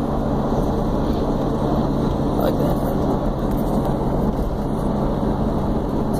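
Steady road noise of a moving car, tyres and engine running, heard from inside the car.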